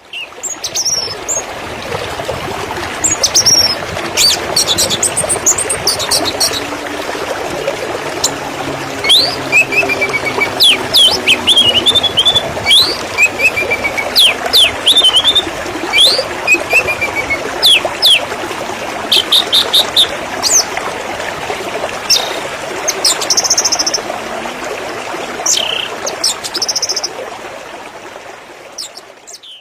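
Several birds chirping and singing in short, quick phrases over the steady rush of running water, fading down near the end.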